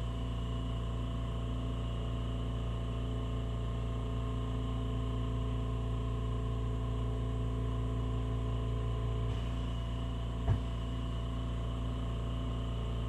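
Steady hum made of several unchanging tones over a low rush, with one brief soft thump about ten and a half seconds in.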